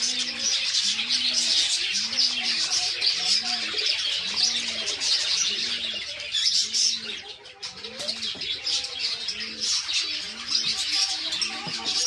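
A flock of budgerigars chattering and warbling without pause. Underneath, a low note rises and falls about once a second.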